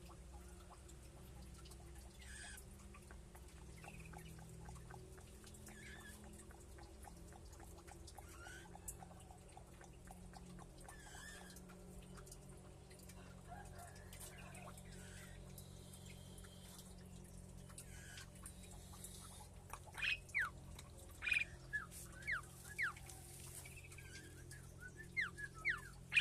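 Caged birds in an aviary giving faint scattered chirps over a steady low hum. Near the end come two clusters of loud, short, sharp calls that sweep in pitch.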